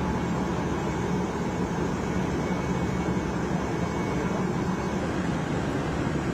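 Steady, unbroken rumble and hiss of large engines running, typical of jet aircraft on an airport apron, with no breaks or changes.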